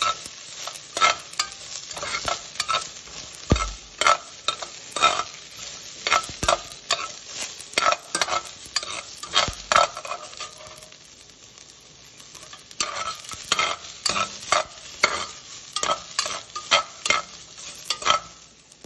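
Carrot sticks frying in a little olive oil in a frying pan, stirred with a metal spoon that scrapes across the pan in quick repeated strokes. The stirring stops for about two seconds a little past halfway, then carries on.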